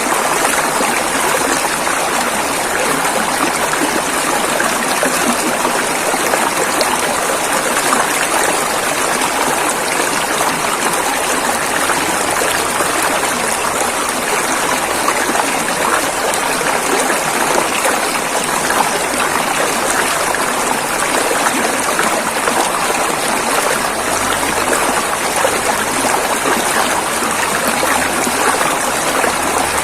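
River water flowing and rushing over rocks, a steady, unbroken rush.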